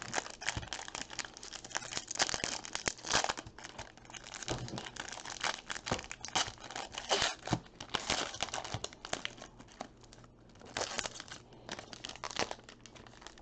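Foil trading-card pack torn open and its wrapper crinkled by hand: an irregular run of crackling and tearing that thins out briefly about ten seconds in.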